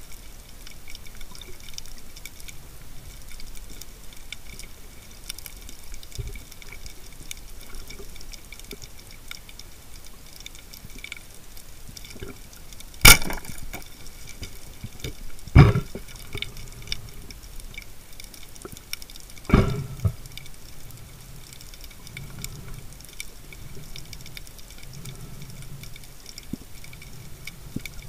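Underwater ambience with a steady crackling hiss. About halfway through, a speargun fires with one sharp crack, and two more sharp knocks follow a few seconds apart.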